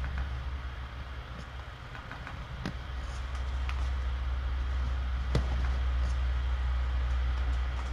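Steady low background hum with a few faint sharp clicks, the clearest about two and a half and five and a half seconds in.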